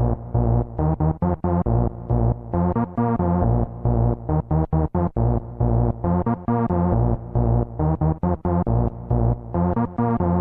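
Electronic dance music without vocals: synthesizer and keyboard chords over a choppy, rhythmic beat with heavy bass.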